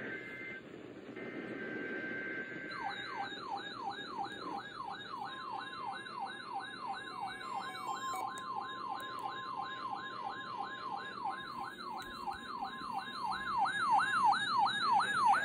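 Weather alert radios receiving a NOAA Weather Radio weekly test: two short bursts of buzzy SAME data-header tones, then the radios' alarms go off, a fast wailing siren sweeping up about three times a second with a higher warbling tone above it. A steady tone sounds in the middle, and the alarm grows louder near the end.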